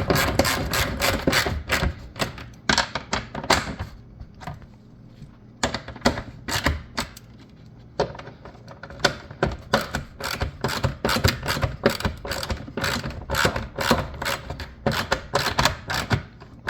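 Hand ratchet clicking in quick runs as the taillight mounting bolts are tightened, with a couple of short pauses between runs.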